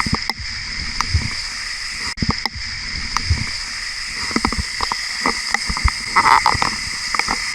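Steady high hiss of the Sticky Waterfall's water running over rock, with irregular knocks and low thumps from footsteps and handling throughout.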